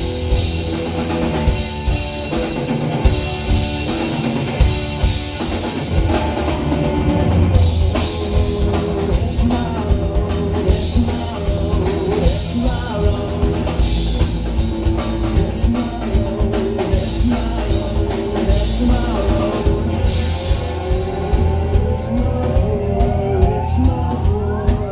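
A live rock band playing: drum kit, electric guitar and bass guitar, with the bass player singing lead. A rising pitch slide comes near the end.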